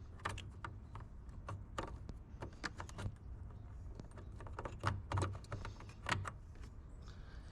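Scattered small plastic clicks and knocks as LED headlight-bulb wiring and its connector are pushed back into the headlight housing.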